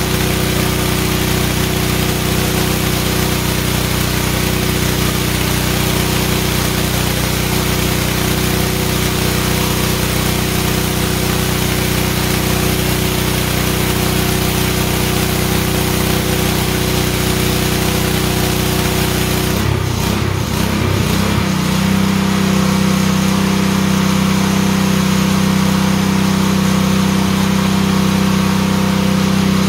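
DeWalt 3600 PSI gas pressure washer running steadily, its engine under load while the spray wand hisses on concrete. About two-thirds through, the spray stops and the engine note wavers, then settles into a steady hum as the trigger is released.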